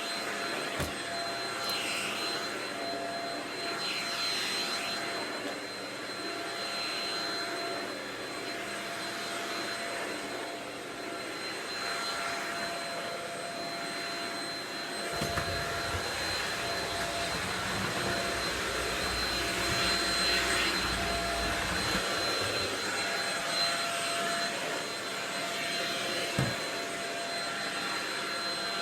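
Shark Rocket stick vacuum running steadily with a high whine. A deeper rumble joins for several seconds in the middle, and there are two sharp knocks, one near the start and one near the end.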